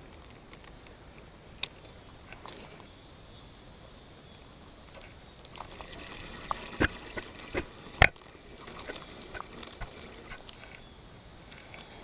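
A small hooked fish splashing at the surface as it is reeled in and lifted from the water, with scattered clicks and knocks of rod and reel handling. Quiet at first, the clicks bunch up from about halfway, the sharpest about two-thirds of the way in.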